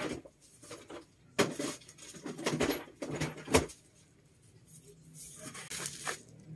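A person moving about a small room and handling things: scattered rustles and knocks, with the loudest sharp knocks about a second and a half in and again about three and a half seconds in, and lighter rustling and clicks near the end.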